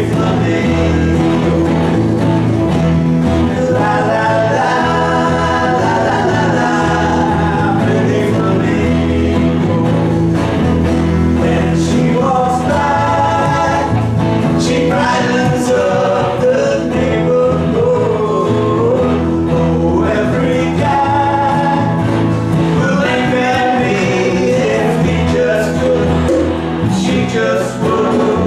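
A small group playing a song live, several voices singing together over instrumental backing.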